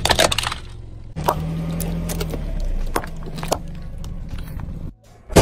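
A car tyre rolling slowly over small objects on pavement, crushing them: dense crackling for the first half second. Then comes a steady low rumble from the car, with a few sharp cracks as things break under the tyre and a loud crack near the end.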